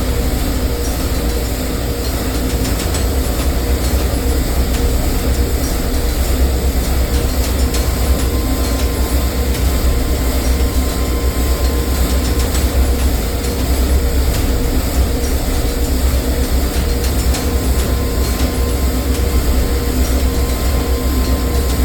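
Copper wire nugget plant running steadily: a loud, continuous machine rumble with a steady hum.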